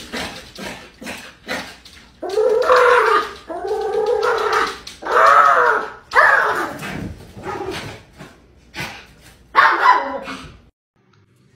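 Small dog whining and yelping, a string of long rising-and-falling cries with short yaps between, stopping about a second before the end.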